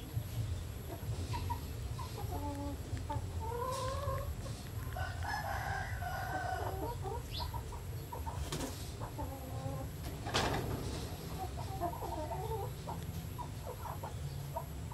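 Chickens clucking, with a rooster crowing in a longer call partway through, over a steady low hum. A couple of sharp clicks come later, the second the loudest.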